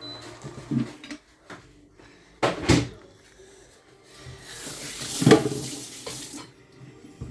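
Kitchen work sounds: a sharp clatter of a utensil or dish about two and a half seconds in, then about two seconds of water running from a tap into a sink.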